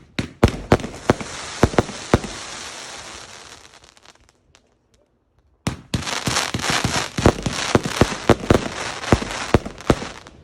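Fireworks going off: a run of sharp bangs with a crackling hiss that fades away, about a second and a half of quiet, then a dense barrage of crackles and bangs starts abruptly past the middle and keeps going.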